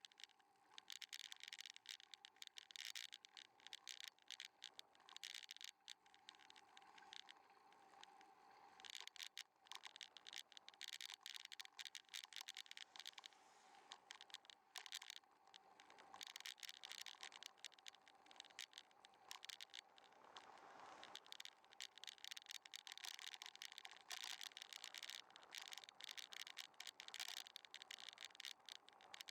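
Faint, continuous crackling rattle and scraping: the vibration noise of a bicycle ride on the road.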